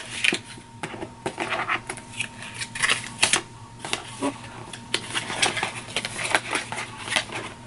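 Hands working at a GoPro's retail packaging that is hard to open: irregular clicks, taps and crinkling of plastic and cardboard.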